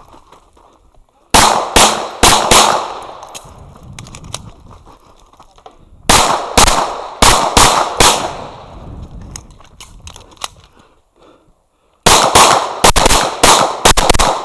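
Pistol fired in three quick strings of several shots each, a few seconds apart, each shot sharp with a short ringing tail.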